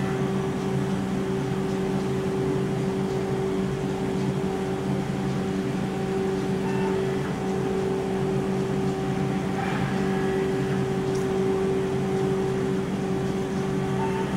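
BKN-S82 soft-serve ice cream machine running steadily while it dispenses, its compressors and beater motors giving a constant hum with a few fixed tones.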